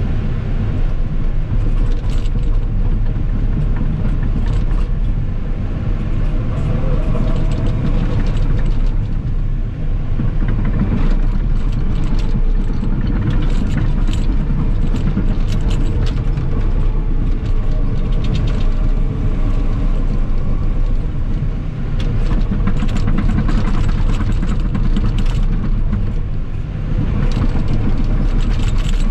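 Cat 963K track loader working: its diesel engine runs steadily under load while the tracks and machine give off rapid metallic clicks and clanks.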